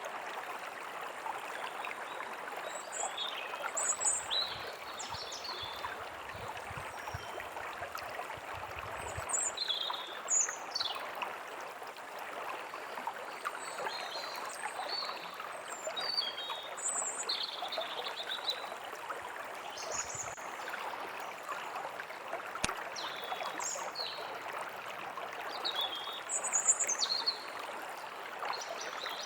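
Steady rush of a flowing stream, with small birds chirping and whistling at intervals over it.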